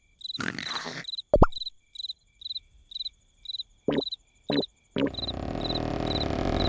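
Cartoon cricket chirping, short high chirps repeating evenly at a little over two a second, with a few brief cartoon sound effects in between and a steady rumbling noise coming in about five seconds in.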